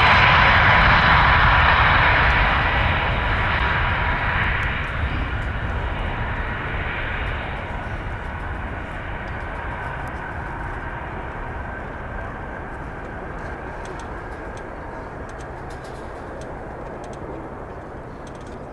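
Airbus A340-600's four Rolls-Royce Trent 500 turbofans passing and fading away: the high fan whine dies out over the first several seconds, leaving a low rumble that keeps getting quieter.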